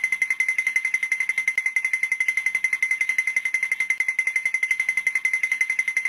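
Cartoon sound cue: a fast, even pulsing, about eight pulses a second, under a steady high tone.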